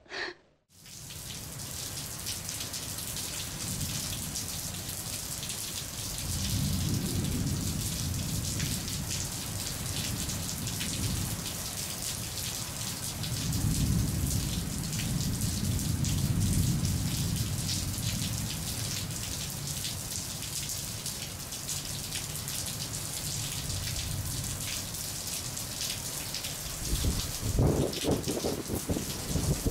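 Steady rain with thunder, likely a storm sound effect. Rolling rumbles swell about six seconds in and again from about thirteen to eighteen seconds, with sharper, louder cracks near the end.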